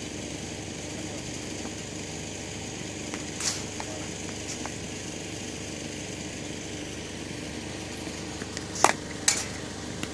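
Cricket bat striking a ball with a loud, sharp crack about nine seconds in, followed a moment later by a second knock, with a softer knock about three and a half seconds in. Under it runs a steady engine-like mechanical drone.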